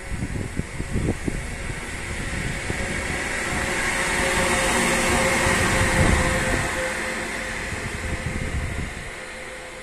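Pesa Gama 111Ed electric locomotive running light past a station platform while shunting. Its sound builds to a peak about five seconds in, as it passes closest, then fades as it draws away, with a steady tone underneath throughout.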